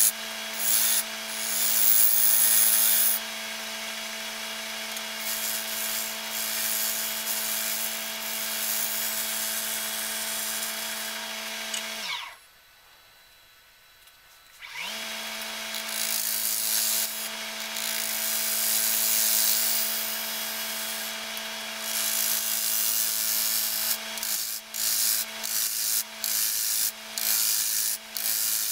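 Wood lathe motor humming steadily while a gouge cuts into a spinning elm disc. About twelve seconds in the lathe winds down and stops, and two to three seconds later it spins back up. Near the end the cutting comes in short, repeated strokes.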